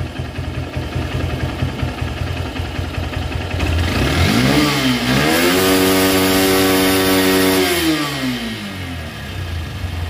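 Honda 160 motorcycle's air-cooled single-cylinder engine, with a freshly cleaned carburettor and new choke cable, idling. About four seconds in it is revved up, held high for about three seconds, then falls back to idle.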